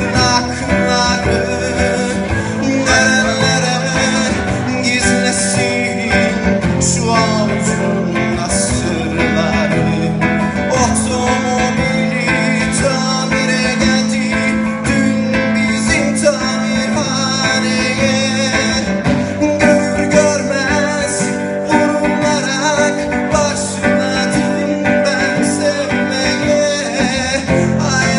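Acoustic guitar strummed while a man sings along.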